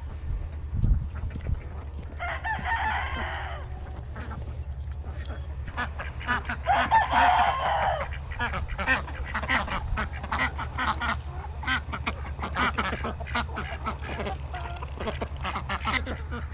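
A flock of ducks and chickens calling: ducks quacking and chickens clucking, with two longer, louder calls a couple of seconds and about seven seconds in, then a run of quick short calls, over a steady low hum.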